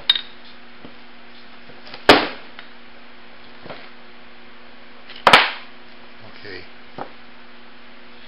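Two sharp metallic clanks about three seconds apart, with a few lighter clicks and taps between them. This is the Honda ATC 110's bare aluminium crankcase and tools being handled and set down on the workbench.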